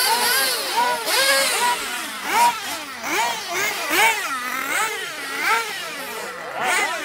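Several radio-controlled off-road buggies racing. Their motors rev up and fall off again and again, in many overlapping rising and falling pitches, as they speed up and slow down over the jumps.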